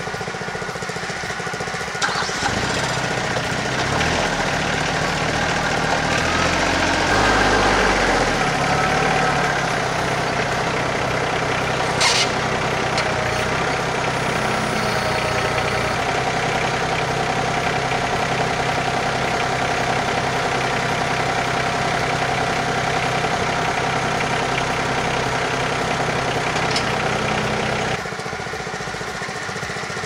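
Compact tractor's diesel engine running under the grapple work, revving up and down for a few seconds early on, then holding steady. One sharp metallic knock about twelve seconds in.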